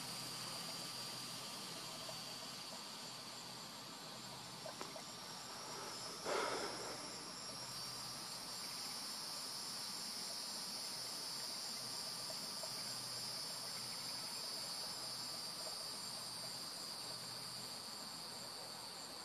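Steady, high-pitched chorus of insects, continuous throughout, with one short louder noise about six seconds in.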